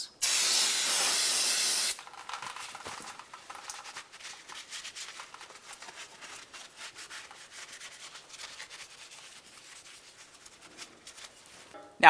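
Aerosol spray can hissing steadily for about two seconds, cleaning fluid sprayed onto the transmission line connector. Then a rag rubs and wipes over the oily metal in many short strokes, quieter than the spray.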